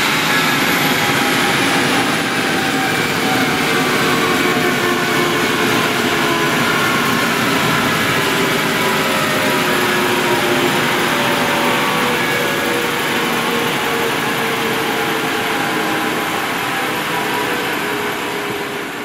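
Airbus H145 rescue helicopter's twin turbine engines and rotor winding down on the ground after landing: a steady turbine whine and rotor sound whose tones slowly fall in pitch, with a high whine dropping away in the first few seconds.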